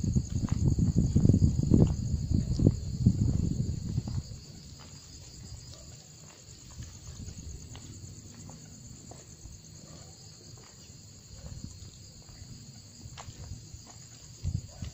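Crickets chirping at night, a steady high trill throughout. For about the first four seconds a louder low rumble sits on the microphone, then only the crickets and a few faint clicks remain.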